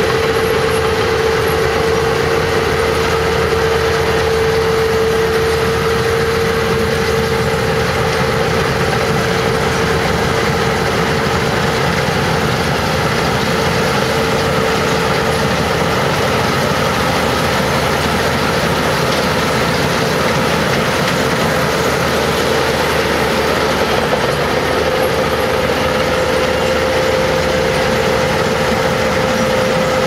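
Claas Lexion 760 combine harvester running while cutting rice: a steady engine and machinery drone with a strong high whine running through it. The whine steps slightly higher about three-quarters of the way through.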